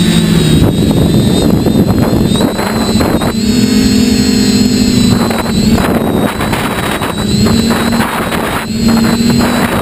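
Radio-controlled model aircraft's motor and propellers running loud and steady, heard from the camera on board, with wind buffeting the microphone.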